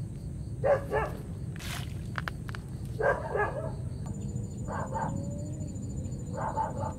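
A dog barking in short runs of two to four quick barks, four times over, over a thin steady high-pitched whine.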